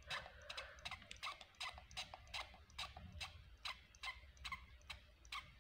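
Small glass perfume spray bottle pumped over and over: a quick run of faint clicks, about three or four a second.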